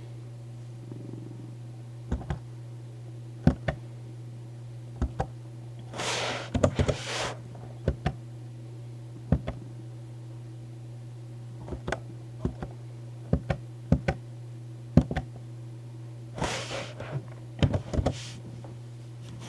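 A cat purring steadily, with scattered sharp clicks and knocks and two brief rustles about six and sixteen seconds in.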